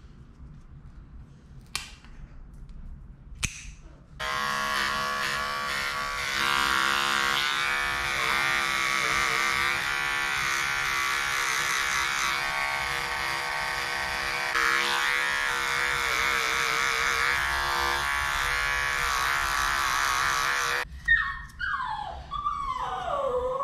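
Electric dog clipper switched on about four seconds in, running with a steady hum while it trims the fur on a dog's paw, then switched off about twenty-one seconds in. Two faint clicks come before it, and a wavering, gliding whine follows near the end.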